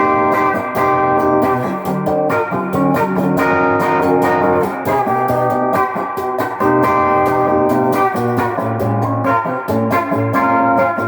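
GearIt Telecaster-style electric guitar with its stock pickup in full humbucker mode, playing picked notes and chords through an amp pushed by a Sweet Cream overdrive pedal, giving a driven tone.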